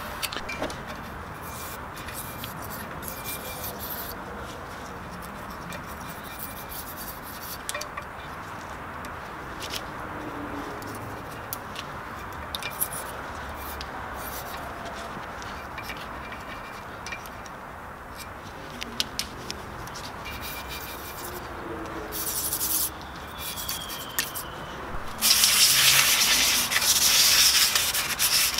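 Steel gasket scraper scraping old gasket residue off the sealing face of a 1.9 TDI cast-iron engine block: steady scratchy rubbing with small clicks of the blade on the metal. A louder stretch of rubbing comes near the end.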